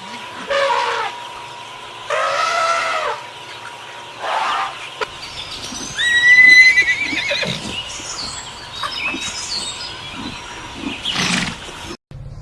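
Horse neighing and whinnying, about five calls, the loudest a long wavering whinny about six seconds in.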